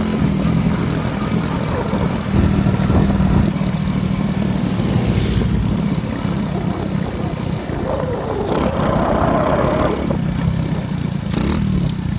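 Motorcycle engine running while riding, with wind noise on the microphone. The engine swells louder for about a second, a little over two seconds in.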